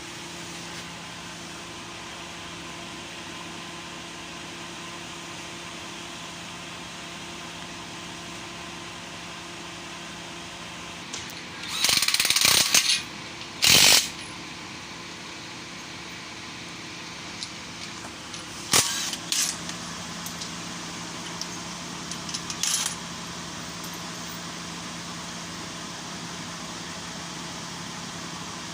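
Metal tools clattering and clanking over a steady hum: a rattle lasting about a second midway, a sharp clank just after it, then a few shorter clanks and rattles later on.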